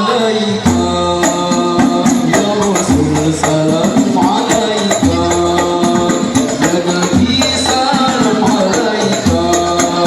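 Banjari performance: voices singing a sholawat melody over Banjari frame drums played in a steady, even rhythm, with deep low drum hits recurring about every two seconds.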